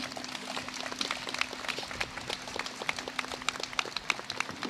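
Audience applauding, with many separate hand claps that start just as the citation ends.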